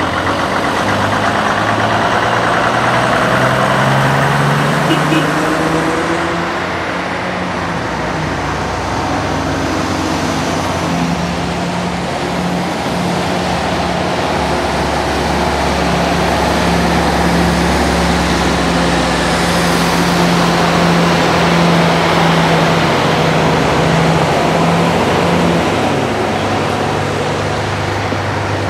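Vintage buses' engines running as the buses drive slowly past one after another. An old Saurer bus's engine note rises as it pulls away in the first few seconds, then another engine holds a steady note through most of the rest.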